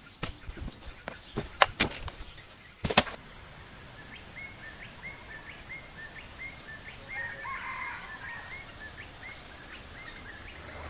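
Heavy oil palm fruit bunches knocking and thudding as they are thrown onto a pile, a dozen or so sharp hits in the first three seconds. Then a steady, high-pitched insect drone, with a bird repeating short chirps over it.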